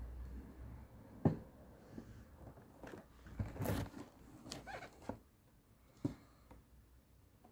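Objects being handled: a few scattered knocks and clicks, with a brief rustle a little past the middle.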